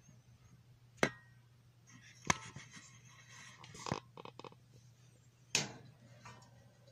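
Four sharp knocks a second or more apart, with lighter clinking and rattling between the second and third, over a faint steady low hum.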